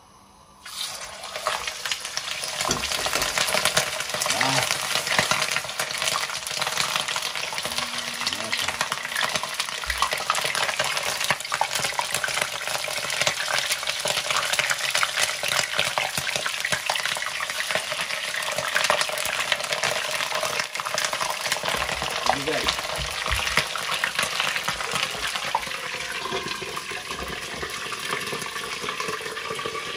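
Hot oil in a plov pot spitting and sizzling loudly as food is dropped in, starting abruptly about a second in and going on as a dense, steady crackle.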